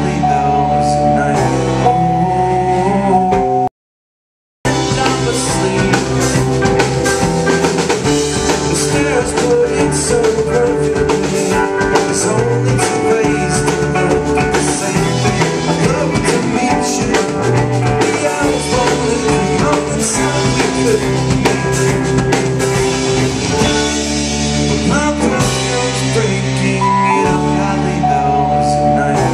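Live rock band playing with electric guitars, drums and keyboard. The sound drops out completely for just under a second about four seconds in.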